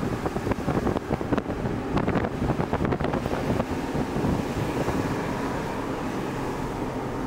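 Truck engine and road noise heard from on board, with wind buffeting the microphone and a run of rattling knocks through the first half.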